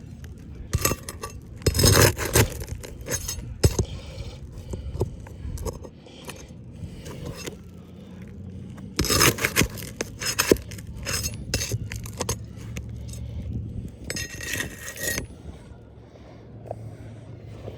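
Irregular clinking, rattling and scraping of small hard parts being handled, with louder clusters about two seconds in and again around nine to ten seconds, over a steady low hum.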